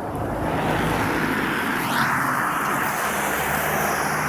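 A motor vehicle going by: a steady rush of tyre and engine noise with a low hum underneath.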